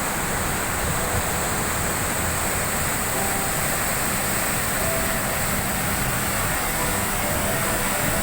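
Steady rush of a cascading waterfall, falling water heard as an even noise.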